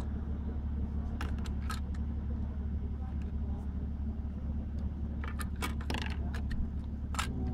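Small hard plastic parts of a Dye Rotor paintball loader clicking and clattering in a few short bursts as it is handled and taken apart, over a steady low rumble.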